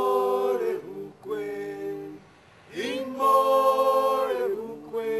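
Unaccompanied choir singing long held chords in several voice parts, with short breaks between phrases.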